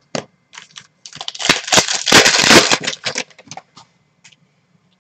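Glossy Prizm trading cards being flipped and slid against one another in the hands. A few clicks are followed, about a second in, by a dense run of rubbing and clicking lasting some two seconds, which then thins to scattered clicks.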